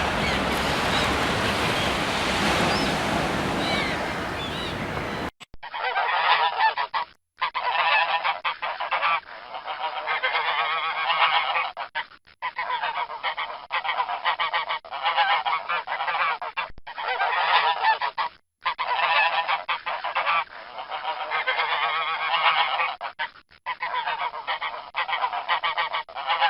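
A flock of geese honking, many calls overlapping. The honking starts after an abrupt cut about five seconds in, where a noisier, fuller-sounding recording ends, and it breaks off briefly several times, as at the joins between spliced clips.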